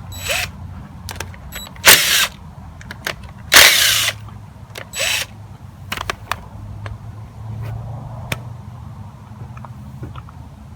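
Metal hand tools clanking and clicking against the engine of a Honda XR250R while its oil filter cover is taken off. There are four loud clanks, the loudest about two and four seconds in, some with a brief metallic ring, and lighter clicks between them.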